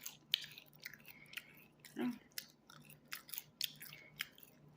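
Close-up crunchy chewing of a quesadilla with toasted grasshoppers (chapulines), a rapid irregular run of crisp crackles and snaps.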